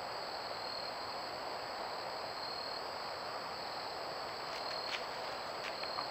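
Steady chorus of night insects over the trail camera's hiss. A few soft crunches of leaf litter near the end as the deer step and feed.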